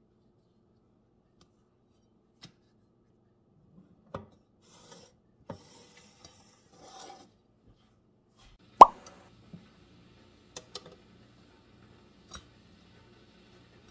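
Metal kitchen tongs clicking and tapping against a waffle iron's plates and a ceramic plate, with soft rustling of tortillas being lifted out. A single sharp, ringing clink past the middle is the loudest sound.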